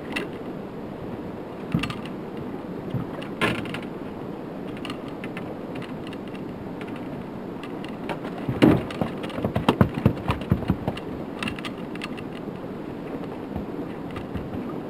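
Fishing reel being cranked with mechanical clicking, then a run of sharp knocks and thumps on the boat's metal deck, loudest from about eight and a half seconds in, as a landed fish is handled aboard. Steady wind and water noise runs underneath.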